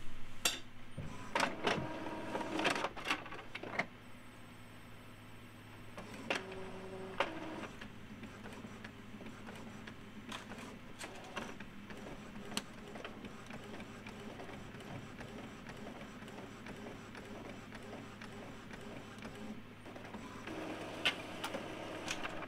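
Epson ET-4800 EcoTank inkjet printer printing a nozzle-check page. There are louder whirs and clicks at first and again about six seconds in, then a steadier, quieter run with scattered clicks, and louder whirring near the end as the printed sheet feeds out.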